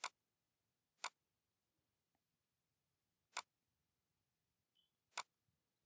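Four sharp computer mouse clicks, unevenly spaced, with near silence between them.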